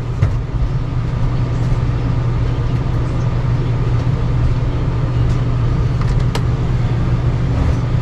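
A steady low machine drone with a constant hum, running unchanged throughout, and a faint click about six seconds in.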